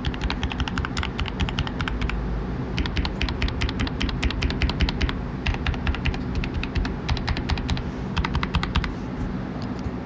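Fast typing on a Rakk Ilis mechanical keyboard fitted with Outemu Red linear switches lubed with Vaseline: quick runs of keystroke clicks with brief pauses, one about two seconds in, over a steady low hum.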